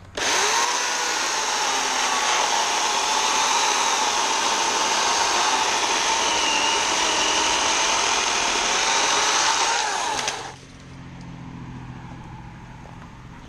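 Portland 14-inch 9-amp electric chainsaw running while it cuts through a tree limb. It gives a steady motor and chain whine that sags slightly in pitch as it bites into the wood, then stops about ten and a half seconds in.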